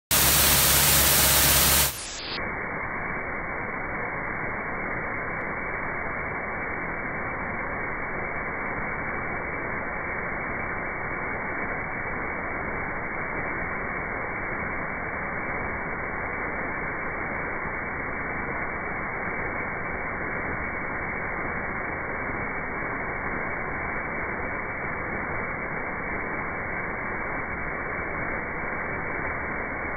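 A sweeper's rotating wire-strand gutter broom (a Piranha brush) grinding through turf and dirt at a road edge, heard as a steady, even, muffled rushing noise with no distinct engine tone. It opens with about two seconds of much louder harsh hiss that cuts off abruptly.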